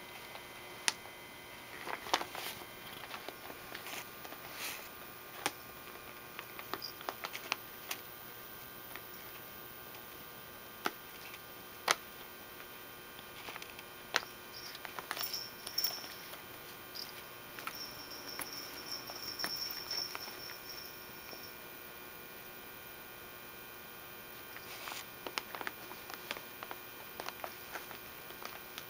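A cat rummaging inside a leather purse: irregular small clicks, taps and rustles as items inside the bag are pushed about.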